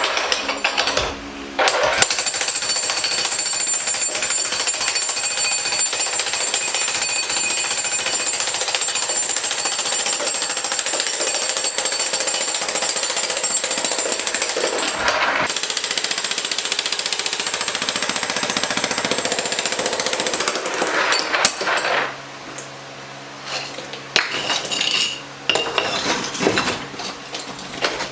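Heavy 90-pound jackhammer breaking up concrete curbs: a steady, rapid hammering with short breaks about a second in and near the middle. After about 22 s it comes in short bursts with pauses between them.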